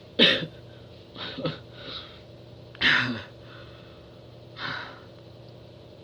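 A man's short, breathy gasps and exhalations: about five bursts spread a second or so apart, a couple of them with a little voice in them. A faint steady hum runs underneath.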